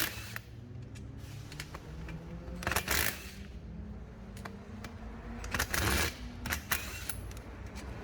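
Scattered metallic clicks and clinks of hand tools and parts being handled during compressor work, with two short scraping or rustling noises, over a steady low hum.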